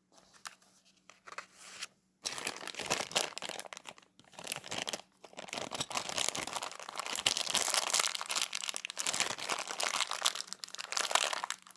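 Plastic LEGO parts bag crinkling and rustling as it is handled, starting about two seconds in, with a brief pause about five seconds in.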